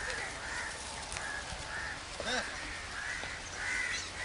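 Birds calling in a steady run of short calls, about two a second. A brief voice-like sound about two seconds in.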